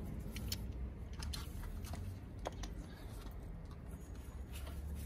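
A few light, scattered clicks from a socket and hand tools being handled, over a low steady rumble.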